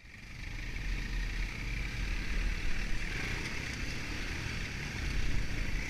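Quad bike engine running as the bike rides along, fading in over the first second and then steady.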